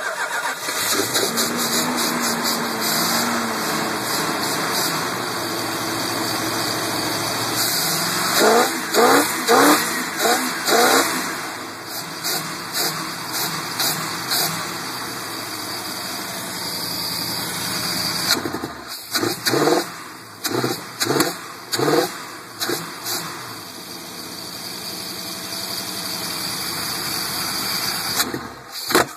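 Carbureted V8 engine of a 1976 Dodge Sportsman motorhome running with its air cleaner lid off, blipped several times in quick succession about eight seconds in, again around twenty seconds, and near the end, settling back to a steady run between. The owner reckons it is running pretty good.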